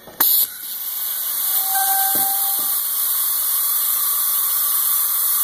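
Compressed air from a shop hose, its compressor set at 75 psi, hissing into a homemade PVC air cannon's pressure chamber. The hiss starts with a short sharp burst as the air chuck snaps onto the fill fitting, then builds over the first couple of seconds into a steady hiss as the chamber fills.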